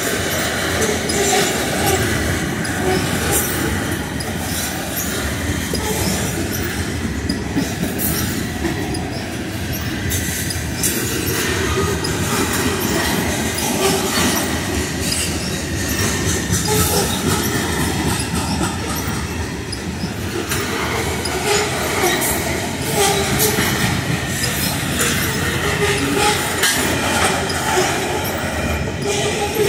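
Freight train of covered hopper cars rolling past close by: a steady rumble of steel wheels on the rails, with the repeated clicks and clatter of wheels passing over rail joints.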